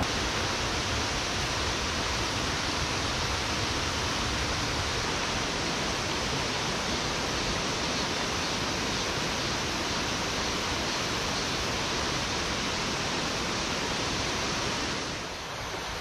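Rushing water of a mountain stream: a steady, even hiss that drops a little just before the end.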